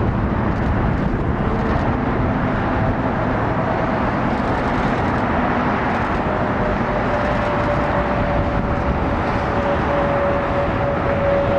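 Jet engine noise from an Airbus A350-900's Rolls-Royce Trent XWB turbofans as the airliner climbs away after takeoff. It is a steady, loud rush with a faint tone that slowly drops in pitch as the aircraft recedes.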